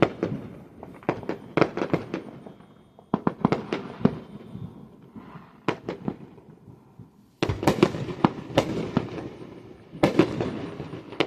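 Fireworks popping in rapid clusters of sharp cracks with short lulls between. The densest, loudest flurry comes about two-thirds of the way through.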